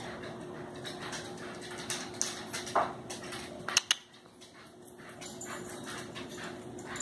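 Dog digging and pawing in a pile of blankets: fabric rustling with scattered scratches and clicks, a couple of sharper clicks a little before halfway, and a brief dip in the rustling just after them.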